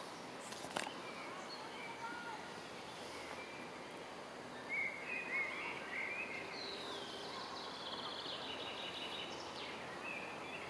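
Woodland ambience: a steady background hiss with small birds chirping, a few louder chirps a little before halfway and a rapid trill later on. A single sharp click about a second in.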